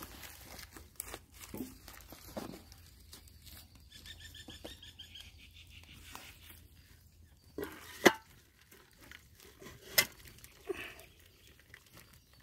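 Aluminium cooking pot and steel bowl being handled on the ground: a few sharp metal clanks, the loudest about eight and ten seconds in, among light rustling of leaves, as the pot of cooked rice is turned upside down into the bowl to drain off the starch water.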